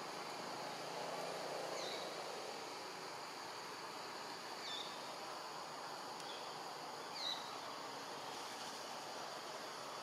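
Forest ambience: a steady hiss of insects, with a bird giving a short falling chirp about every two and a half seconds, four times.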